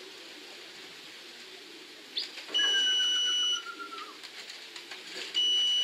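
Electronic pigeon-race clock beeping twice, each a steady high beep lasting about a second, as homing pigeons arriving at the loft are registered passing the entry antenna. A fainter falling whistle-like tone runs under the first beep.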